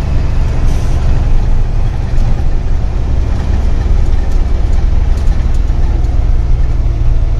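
Heavy truck's diesel engine running with a steady low drone, heard from inside the cab while driving, with a brief hiss about a second in.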